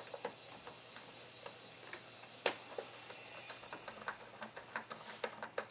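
Small screwdriver turning a screw into the plastic battery cover of an airsoft electric drum magazine: a run of light clicks and ticks. One sharper click comes about halfway through, and the clicks come quicker near the end.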